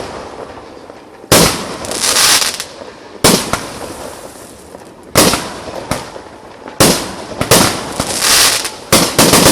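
Aerial fireworks shells bursting: about seven sharp bangs spaced one to two seconds apart, coming closer together near the end, each followed by about a second of crackling hiss.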